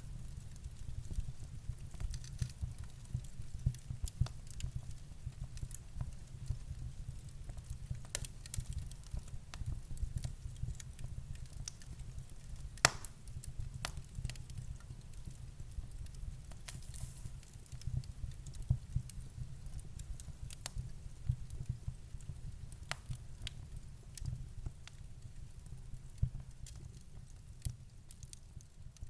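Wood fire burning in a fireplace: a steady low rumble of the flames with irregular crackles and pops of burning wood, one sharper pop about halfway through.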